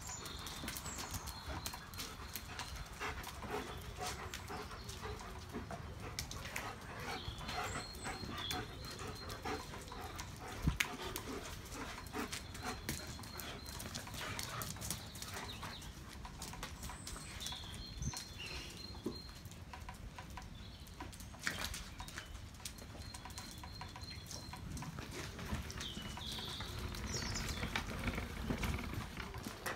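A pack of German shepherds playing on a wet concrete patio: dog play noises with paws and claws scuffling and clicking on the ground.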